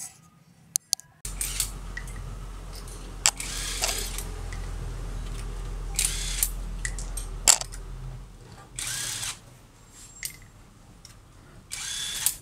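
Power tool working on a car in a repair shop: a steady low hum with four short hissing bursts of tool noise, and a couple of sharp clicks about a second in.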